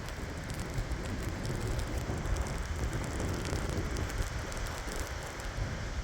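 Strong gusting wind in a lake-effect snowstorm, rumbling low on the microphone, with a steady fine crackle of wind-driven snow.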